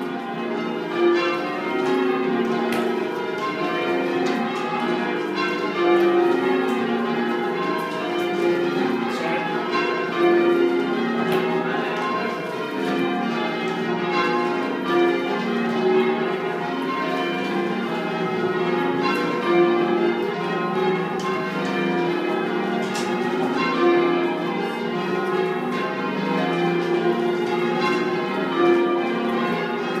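Change ringing on a ring of ten church bells cast by C. & G. Mears at the Whitechapel Foundry in 1849, the bells striking one after another in a steady, unbroken stream.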